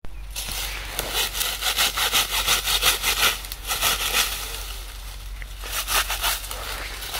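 Dry grass stalks being cut with a hand sickle and pulled into bundles: a run of quick rasping, crackling strokes about a second in, easing off, then another short burst of crackling near the end.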